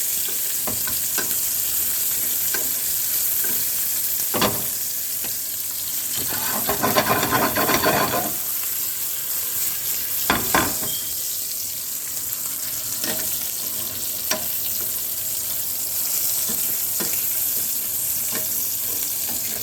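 Meat and garlic sizzling in a frying pan, browning before the sauce is added, with a utensil clicking and scraping against the pan as it is stirred. There is a busier stretch of scraping about six to eight seconds in.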